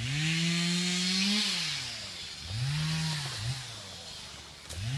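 Small Stihl two-stroke chainsaw revving up, holding for about a second and a half and dropping back, then a shorter rev and fall, and starting to rev again at the end.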